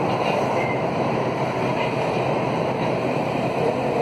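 Alstom AS 02 steel-wheeled metro train running, heard from inside the car: a steady, even noise of wheels on rail.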